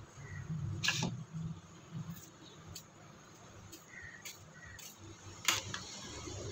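Small kitchen knife cutting a tomato held in the hand over a plate, with a few sharp clicks and taps as the knife and tomato pieces touch the plate; a low hum in the first two seconds.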